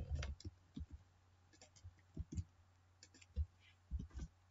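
Computer keyboard being typed on: a faint, irregular series of light key clicks, some in quick little clusters.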